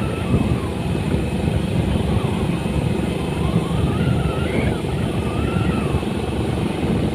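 Steady low rumble of a vehicle on the move, with road and wind noise.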